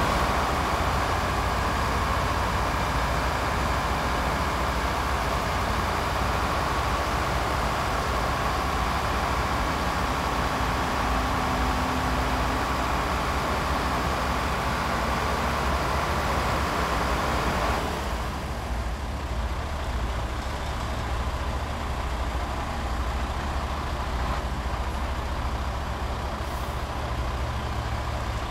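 Diesel engine of a Sinotruk HOWO 371 twelve-wheel dump truck running steadily while it drives the hydraulic hoist raising the tipper body. The higher, rushing part of the noise eases about eighteen seconds in, leaving a lower engine drone.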